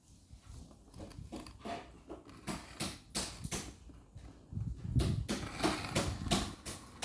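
Handling noises from packaging being opened: a run of clicks and rustles, sparse at first and coming thick and fast from about halfway, with a dull thump near the end.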